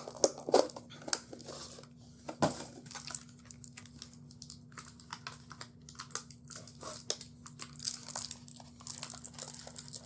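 Plastic toy packaging being crinkled and pulled open by hand: irregular crackling and rustling with scattered sharp clicks, the sharpest snap about two and a half seconds in, over a faint steady hum.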